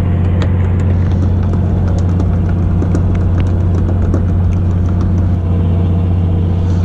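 Fishing boat's engine running at a steady low hum, with light clicks from fishing tackle being handled.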